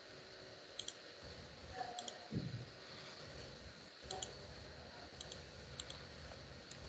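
Faint computer mouse clicks, several of them in quick pairs, spaced a second or so apart. A soft low thump comes about two and a half seconds in.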